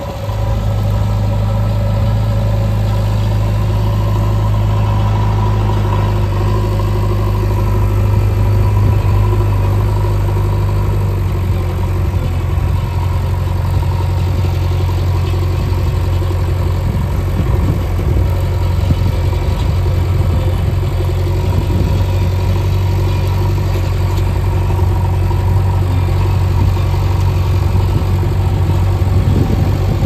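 JCB 3DX Xtra backhoe loader's diesel engine running steadily with a low, even drone, as the machine pushes large boulders with its front loader bucket.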